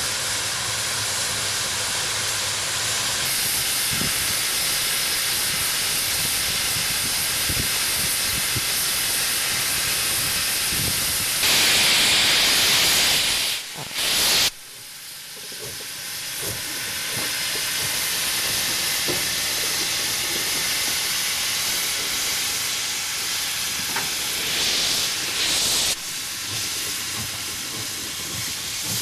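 QJ-class 2-10-2 steam locomotive hissing steadily as it stands with steam up. About twelve seconds in, a louder blast of steam billows out around its wheels and breaks off suddenly. A shorter surge of hiss comes near the end.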